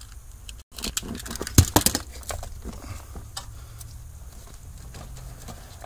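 Hands handling a vehicle wiring harness at the steering column: small clicks and rustles of plastic connectors and wires, with a cluster of sharper clicks about a second and a half in.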